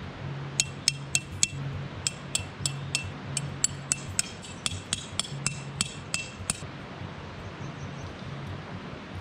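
Tent pegs being hammered in: a run of sharp, ringing clinks, three to four strikes a second, that stop about six and a half seconds in.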